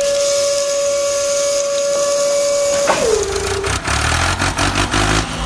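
A small electric motor whining at a steady pitch, then dropping sharply in pitch about three seconds in. A low rumble with rapid rattling and clicking follows.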